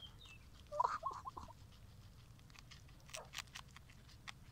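Peruvian guinea pig biting and chewing a raw fennel bulb, a run of crisp crunches in the second half. A short chirping call about a second in is the loudest sound.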